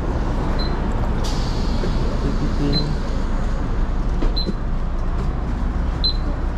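City bus idling at the stop with its engine running steadily. A sharp air hiss comes about a second in, and short high beeps sound every second or two as boarding passengers tap cards on the fare reader.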